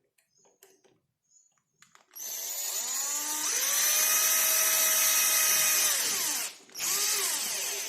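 Electric power drill running in two bursts. The first starts about two seconds in, speeds up, holds a steady whine for about three seconds and winds down. A shorter burst follows near the end.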